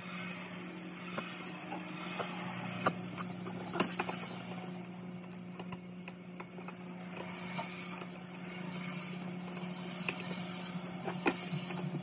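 Faint scraping and clicking of a screwdriver and a GFCI receptacle as the receptacle is pushed into its wall box and its mounting screws are driven, with a few sharper clicks among them, over a steady low hum.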